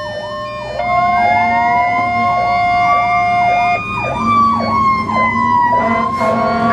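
Fire truck sirens sounding together: a fast electronic yelp, about two cycles a second, over a slow wail that winds up from about a second in, sags and rises again. A steady horn tone sounds through the first few seconds.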